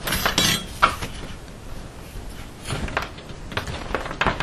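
Rustling, scraping and clicking as a lacing needle and twine are worked through underneath a bundle of wires. The sounds come in short bursts, busiest in the first second and again around three and four seconds in.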